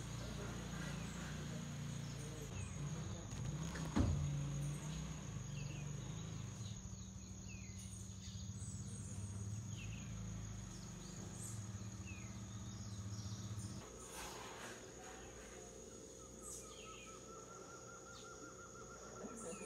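Large moth vibrating its wings on a wooden floor: a low hum that stops about two-thirds of the way through, with a single knock about four seconds in. A steady high insect tone runs behind it, and a trilling insect call starts near the end.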